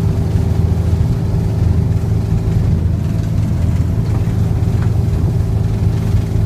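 A fishing boat's engine running steadily under way, a deep, even drone.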